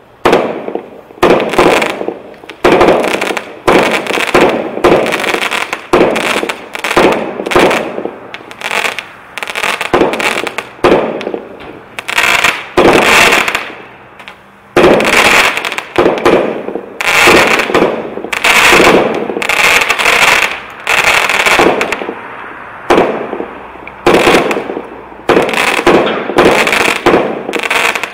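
A 36-shot fireworks cake (Powerhouse Fireworks' Sizzling Sunrise) firing its shots one after another, about one a second. Each is a sharp report trailing off into the crackle of crackling stars, with a short lull about halfway through.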